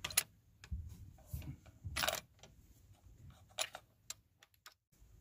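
Bolt of a Bergara B-14 HMR rifle being worked by hand to extract the spent 6.5 Creedmoor case: a series of sharp metallic clicks and knocks, one of them a little longer about two seconds in.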